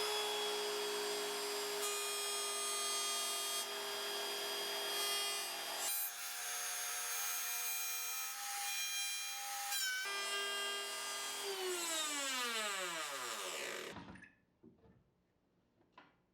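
Small high-speed power tool motor running steadily with a whine, its tone changing for a few seconds in the middle. It is then switched off and winds down with a falling whine, going quiet about fourteen seconds in, followed by a few faint ticks.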